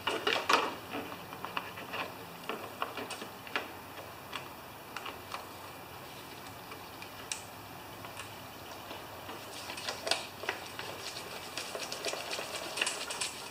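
Clicks, taps and knocks of plastic parts as a new air filter is handled and fitted into the air filter housing of a Briggs & Stratton mower engine. The handling noise comes in clusters: one in the first second, another around ten seconds in, and more near the end.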